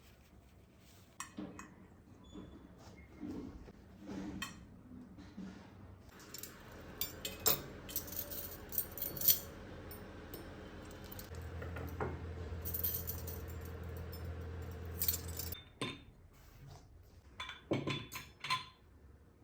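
Dishes, glasses and cutlery clinking and knocking as they are handled and set down, in scattered sharp clicks. A steady low hum runs through the middle and cuts off about three-quarters of the way through.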